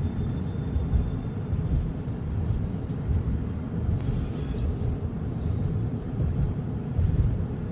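Steady low rumble of road and wind noise from a Tesla Cybertruck driving, with no engine note since the truck is electric.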